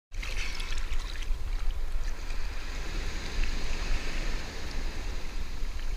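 Sea water sloshing around a camera held at the waterline, with small waves breaking on the beach and a steady low rumble of water buffeting the microphone.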